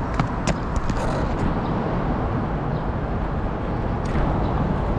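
Steady wind rumble on a GoPro camera's microphone, with a few sharp taps in the first second and another couple about four seconds in.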